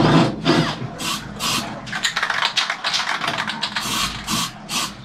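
Short rasping strokes, about two a second, from hand scraping at the edge of a freshly drilled hole in steel.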